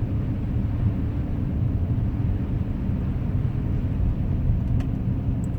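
2010 Acura MDX driving, a steady low rumble of tyre and engine noise.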